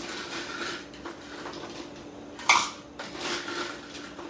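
Ice cubes clinking and clattering into a drinking cup from an ice machine, with one louder clatter about two and a half seconds in, over a faint steady low hum.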